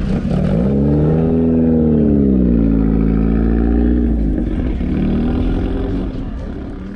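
A car engine running over a deep rumble, its pitch climbing about a second in, then easing back down, then rising slightly again.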